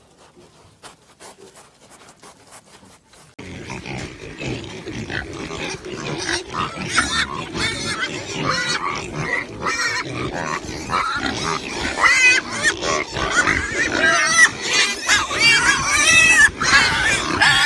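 A group of pigs grunting and squealing, many at once. It starts abruptly a few seconds in, after a few faint clicks, and the high squeals grow louder and more frequent toward the end.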